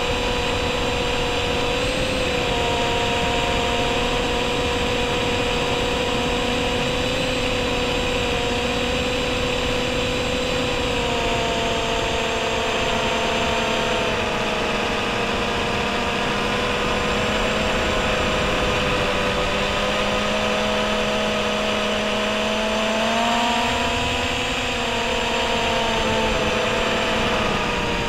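MJX Bugs 3 quadcopter's 2S-powered brushless motors and propellers whining steadily, heard from on board over a rush of air. The pitch eases down about eleven seconds in, climbs briefly around twenty-three seconds, then drops near the end as the throttle changes.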